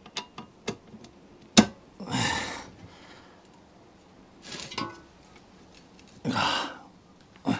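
Hand tools working on the metal of a 1930s Ransomes Atlas Mk1 reel mower: a few light clicks and one sharp metallic knock about one and a half seconds in. Between them come three short breathy noises.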